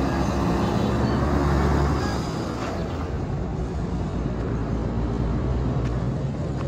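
A motor vehicle engine running steadily, a little louder for the first two seconds and then holding level.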